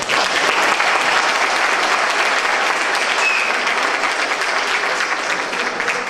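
Audience applauding, starting abruptly and thinning out near the end.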